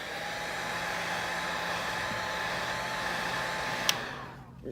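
Electric hot-air heater blowing steadily, warming the back of the phone to soften the battery adhesive. A sharp click about four seconds in, after which the blower winds down.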